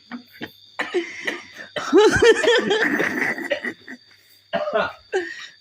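A man laughing hard in repeated bursts, loudest about two seconds in, breaking into coughing near the end.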